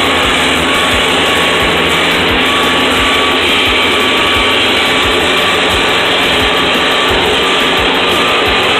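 Tractor diesel engine running steadily under load while pulling a disc harrow, heard from the driver's seat as a loud, even noise with a thin steady whine.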